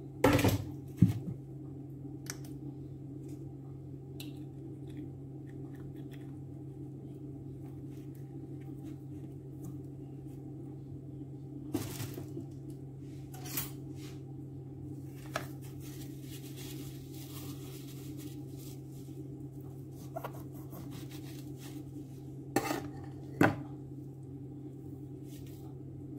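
Kitchen things being handled: scattered clicks and clinks over a steady low hum, with the sharpest knocks about a second in and again near the end.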